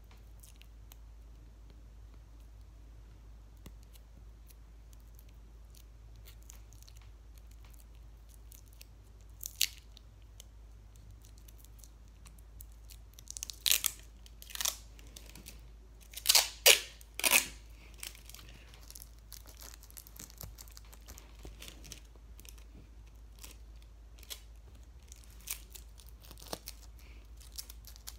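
Clear tape being pulled off its roll in several short, loud rips in the middle of the stretch, among faint handling clicks and rustles.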